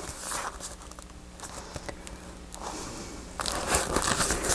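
Paper rustling and crinkling as a glued paper piece is lifted and handled, growing louder and busier near the end.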